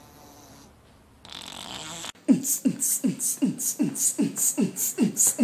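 Beatboxing starts about two seconds in after faint noise: deep kick sounds that drop in pitch alternate with sharp hissing hi-hat sounds in a steady beat, a little under three kicks a second.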